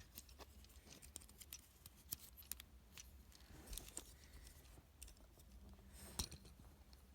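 Near silence with faint, scattered small clicks of a plastic Transformers action figure being handled and posed, over a low steady hum.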